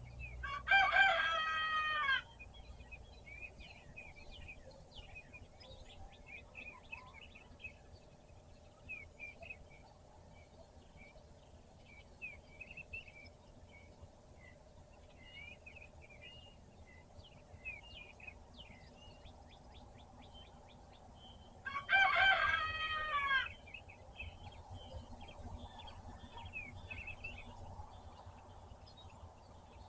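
A rooster crowing twice, about twenty seconds apart, each crow lasting about a second and a half and dropping in pitch at the end. Small songbirds chirp steadily in the background.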